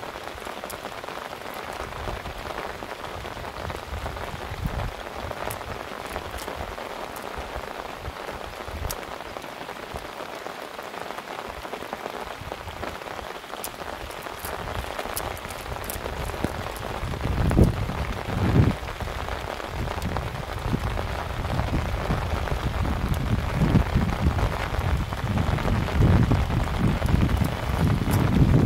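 Steady rain falling, an even patter. Low rumbles and bumps join in and grow louder from about halfway through.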